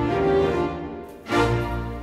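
Intro theme music of sustained instrumental notes, with a fresh swell about a second and a half in.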